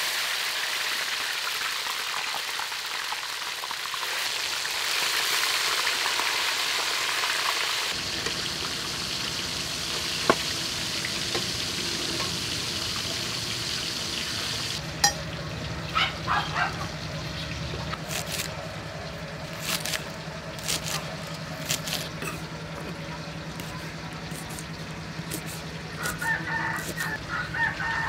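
Food sizzling in hot oil in a wok, a steady frying hiss that dies down about halfway through. After that come scattered sharp taps and knocks, and near the end a chicken clucks.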